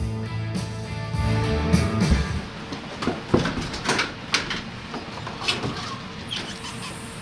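Background music. About halfway through comes a run of sharp knocks and clicks from a house door being opened.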